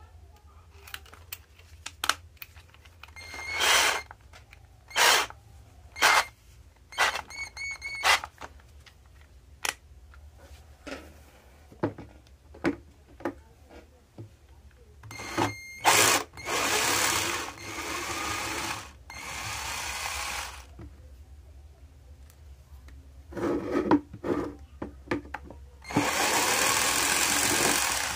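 A 12-volt cordless drill's motor is spun up in several brief trigger pulls. It is then run three times for a second or two each, with clicks and knocks of the tool being handled between runs.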